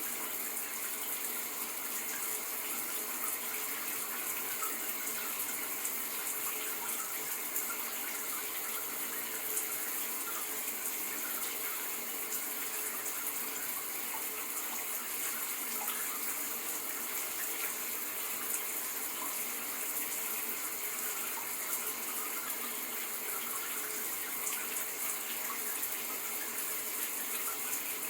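Shower running steadily, water spraying and splashing with an even hiss.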